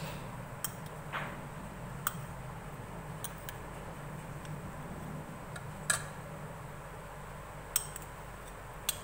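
Metal spoon clinking and scraping against a ribbed glass bowl as mayonnaise is scooped out: several sharp clinks, the loudest about six seconds in, over a steady low hum.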